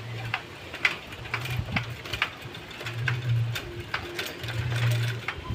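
Bicycle being ridden over a rough dirt track: the chain and freewheel are ticking and rattling with irregular clicks and knocks. A low hum swells and fades about four times.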